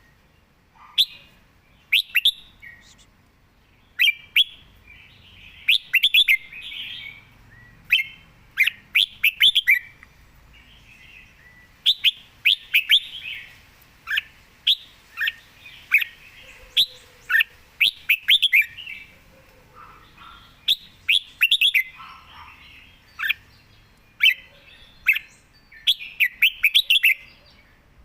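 Red-whiskered bulbul singing: short, quick phrases of sharp whistled notes, a phrase every second or so.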